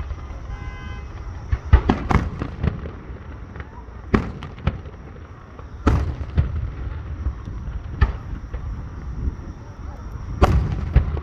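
Aerial fireworks exploding in sharp booms at irregular intervals, with a rapid cluster of bursts about two seconds in, single booms every couple of seconds after, and another cluster near the end, over a steady low rumble.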